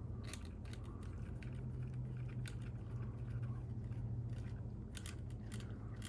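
Scattered light clicks and taps of small parts being handled while working on an RC truck's chassis, over a steady low hum.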